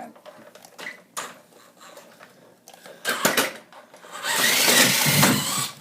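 Toy RC car's small electric motor whirring with its wheels spinning: a short burst about three seconds in, then a louder burst lasting about a second and a half near the end, with light clicks and knocks before it.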